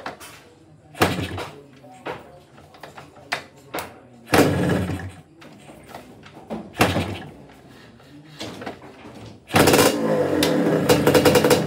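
Yamaha DT125's single-cylinder two-stroke engine being kick-started: short bursts of cranking every two to three seconds, then it fires and keeps running with rapid popping from about nine and a half seconds in.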